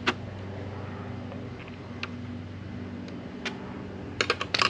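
A steady low hum with a few sharp plastic clicks as a bumper trim clip is worked loose, and a quick run of clicks near the end.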